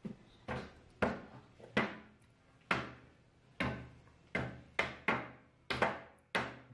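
About a dozen sharp knocks on a hard surface, irregularly spaced less than a second apart, each dying away quickly.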